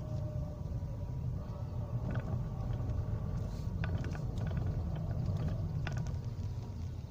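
A car driving slowly, heard from inside the cabin: a steady low rumble of engine and road, with a few faint clicks.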